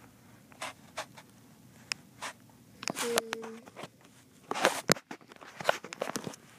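Handling noise from a toy manure loading auger: scattered light clicks and knocks as it is picked up and moved about. The clicks come irregularly, with the loudest cluster about five to six seconds in.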